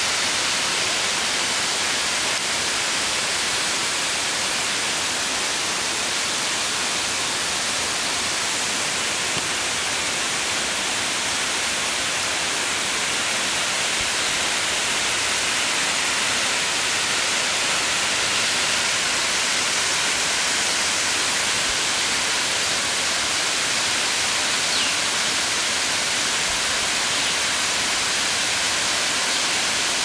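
Salto Santa Clara waterfall's two streams plunging into their plunge pool: a steady, hissing rush of falling water.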